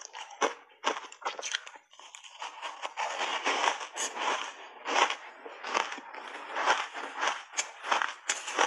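Crunching and chewing of a mouthful of purple block ice coated in milk powder, picked up close on a lapel microphone: a rapid run of crisp crunches with a short lull about two seconds in.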